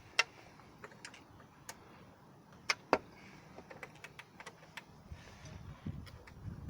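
Scattered sharp metallic clicks and clinks of a hand tool working on the engine cover bolts, two loud ones close together about three seconds in.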